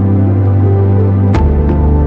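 Background music with held, sustained chords; the harmony shifts with a short struck accent about one and a half seconds in, followed by a lighter strike.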